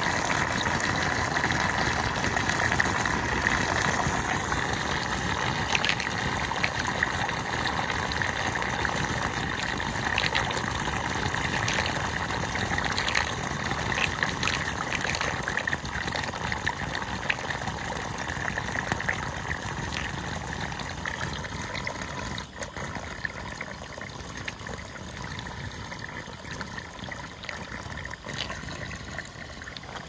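Puddle water draining down a drain hole: a steady rush and gurgle of water swirling into the drain, with scattered small pops. It eases off over the second half as the puddle is nearly drained.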